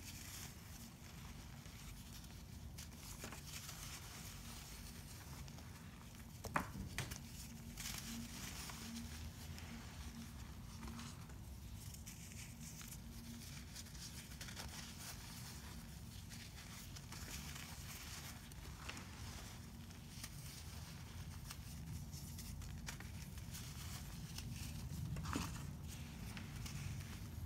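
Hands crushing and crumbling chunks of pink baking soda into loose powder: a soft, continuous crunching and crumbling with many small crackles, and one sharper snap about six and a half seconds in.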